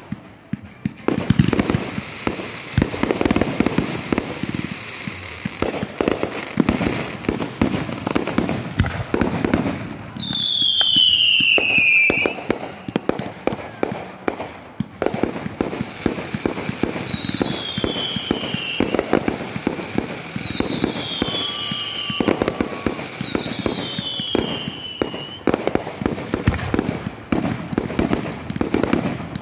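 Fireworks going off in rapid succession, a steady run of bangs and crackling bursts. Four descending whistles from whistling effects rise above it: a long one about ten seconds in and three shorter ones later.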